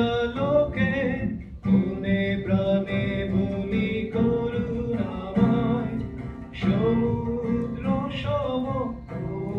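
A man singing in Bengali to his own acoustic guitar, the guitar strummed under long held, gliding vocal lines.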